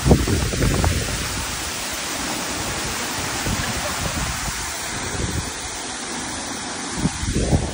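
Secret Falls, a tall waterfall, pouring into its plunge pool: a steady, loud rush of falling water. A few low thumps break in about a second in and again near the end.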